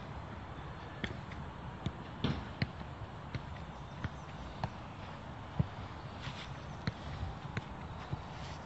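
Scattered sharp knocks and thuds at irregular intervals, from footballs being struck and bouncing and from feet moving on artificial turf, over a steady low rumble.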